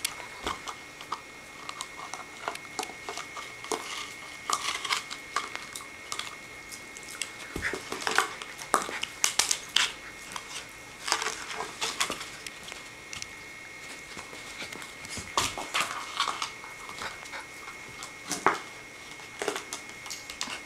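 A puppy chewing on and carrying a plastic dog bowl: irregular clacks, scrapes and crinkly crunching of teeth and the bowl's hard plastic.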